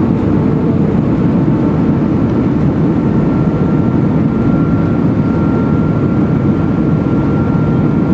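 Steady roar inside the cabin of an Airbus A320 descending on approach to land: engine and airflow noise heard from a window seat. A faint high whine runs through it and grows a little stronger a few seconds in.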